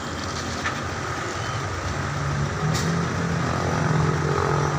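Heavy truck diesel engine running, revving up about two seconds in and staying higher as the crane takes the weight of a container cabin and lifts it.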